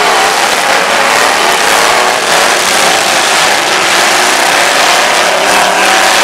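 Several demolition derby cars' engines revving at once, a loud, steady din of overlapping engines whose pitches waver up and down.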